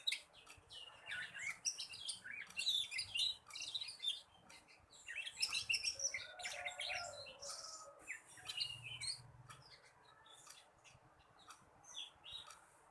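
Young black-red canary warbling in rapid chirps and trills: the twittering practice song (ngeriwik) of a juvenile still learning to sing. The song grows fainter over the last few seconds.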